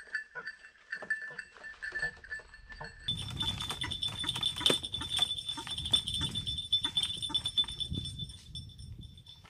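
White-breasted waterhens calling at a wire trap cage, short irregular calls over a steady high whine that jumps higher in pitch about three seconds in.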